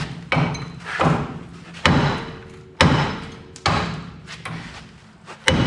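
Sledgehammer blows on the steel front suspension of a Chevrolet C10, struck to break a ball joint loose. The blows come in a steady series about one a second, each ringing briefly.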